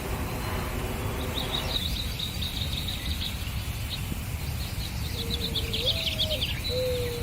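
Birds chirping in quick high runs, with a few short, low whistled notes near the end over a steady low rumble.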